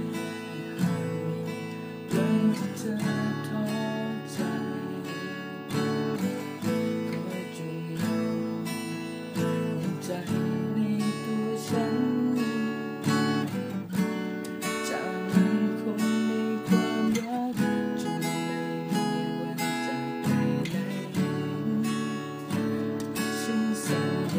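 Music led by strummed acoustic guitar, with a steady run of plucked chords.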